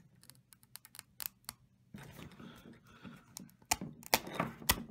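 Cable cutters squeezing through PTFE-lined, double stainless-braided -6 AN hose: scattered clicks at first, then crunching from about two seconds in as the wire strands give, with three sharp snaps near the end, the last the loudest. The braid does not cut easily.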